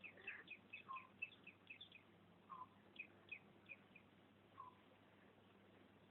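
Faint bird chirping: quick runs of short, falling high chirps, several a second, over the first four seconds, with a few lower chirps between them.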